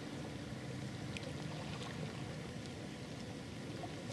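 Faint steady ambient noise of calm water lapping lightly, with a couple of faint ticks about one and two seconds in.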